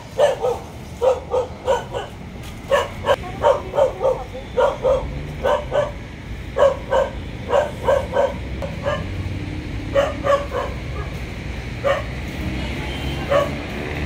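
A dog barking repeatedly in quick runs of short barks. The barks thin out to a few single ones over the last few seconds.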